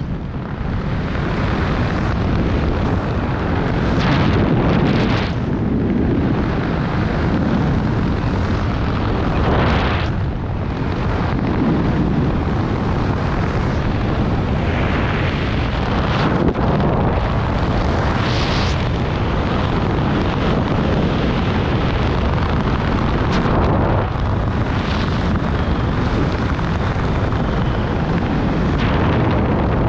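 Wind rushing and buffeting over the microphone while flying under an open parachute: a loud, steady rush with low rumble that swells and eases every few seconds.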